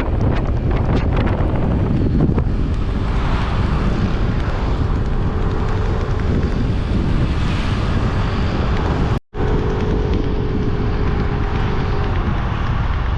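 Heavy wind buffeting on the microphone, with a faint steady engine hum underneath; the sound cuts out for a split second about nine seconds in.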